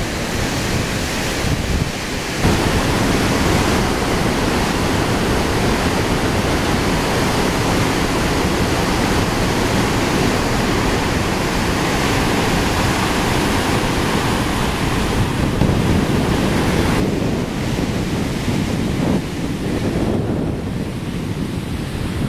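Whitewater of the Merced River rushing through rapids and pouring over the brink of Nevada Fall: a loud, steady rush of water, with wind buffeting the microphone. The tone of the rush shifts abruptly about two seconds in and twice more near the end.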